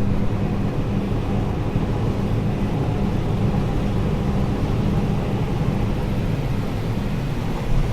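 Combine harvester running steadily while harvesting corn, a constant low drone.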